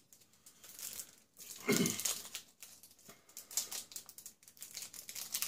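Small needle packet being worked open by hand: crinkling and small clicks, with one louder handling noise about two seconds in.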